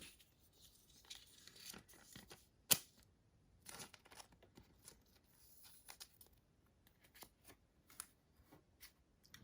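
Clear acetate trading cards being handled and slid against each other: faint scattered clicks and rustles, with one sharper click a little under three seconds in.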